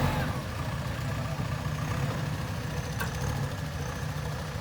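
Backhoe loader's diesel engine running steadily at low revs, with a single sharp click about three seconds in.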